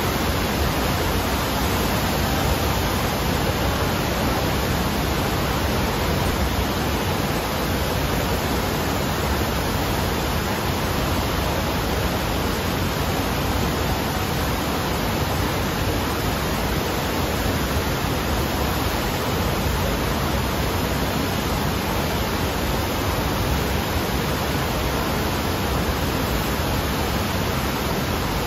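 Steady rush of the thin sheet of water that an indoor wave-surfing machine pumps up its padded slope, a loud, even noise.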